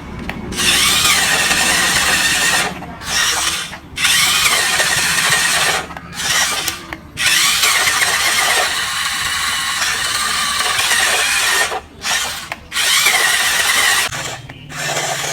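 Small motors of a toy RC vehicle whirring in repeated bursts of a few seconds, cutting out briefly between them, with a high whine that wavers in pitch.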